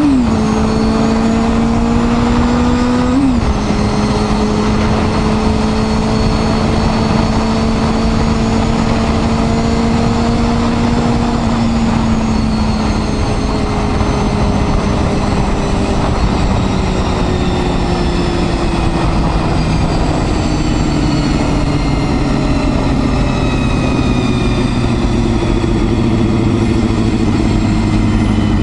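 Honda Hornet 250's high-revving inline-four engine under way: two quick upshifts in the first few seconds, then steady revs that slowly wind down over the second half as the bike slows.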